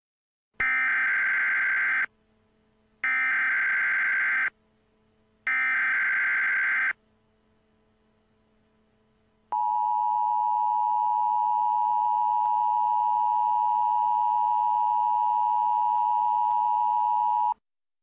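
Mock Emergency Alert System header: three identical bursts of shrill digital data tones, each about a second and a half long with a second's pause between them, then the EAS two-tone attention signal, held steady for about eight seconds before cutting off near the end.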